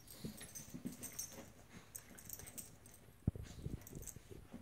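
An American Eskimo dog and a small brown dog play-fighting on carpet: soft, scattered dog vocal noises and the scuffle of their bodies, with a sharp knock a little over three seconds in.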